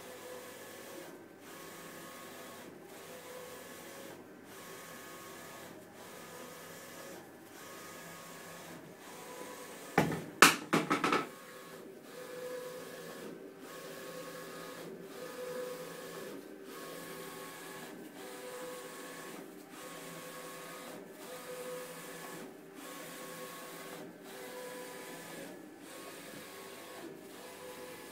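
Wide-format inkjet printer printing a banner, its print head sweeping back and forth with a steady mechanical whir that breaks briefly about every second and a half as the carriage reverses. About ten seconds in there is a quick cluster of sharp knocks.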